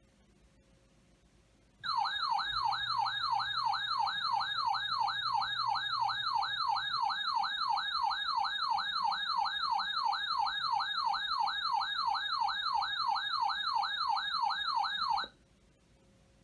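Electronic siren-like alert tone from a weather radio, warbling rapidly up and down about three times a second for roughly 13 seconds, then cutting off suddenly. It is the alarm that marks the start of a new warning broadcast.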